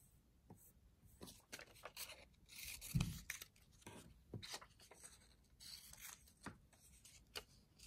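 Scissors snipping through paper picture cards, with paper rustling and sliding on a tabletop. There is a soft thump about three seconds in.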